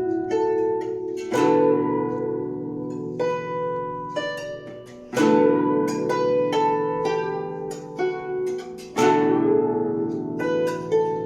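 A Chinese zither played solo: single plucked notes and chords ringing on with long decays, with heavier low strokes about a second, five seconds and nine seconds in.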